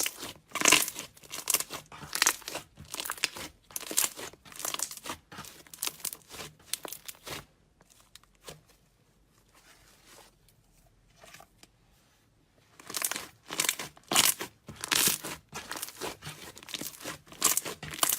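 Slime being squeezed and stretched by hand, giving off short, irregular crackling sounds, with a quieter lull in the middle.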